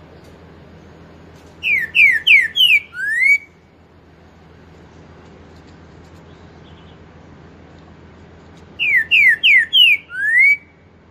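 Green-winged saltator (trinca-ferro) singing two loud phrases, about seven seconds apart. Each phrase is four quick falling whistled notes ending in one rising note, the pantaneiro 'four-note boi' song.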